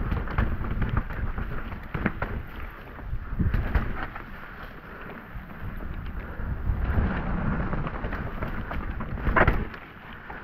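Mountain bike riding down a wet, rocky dirt trail: tyres rolling over dirt and rock with frequent rattles and knocks from the bike, under wind rushing on the microphone. The loudest knock comes about nine seconds in.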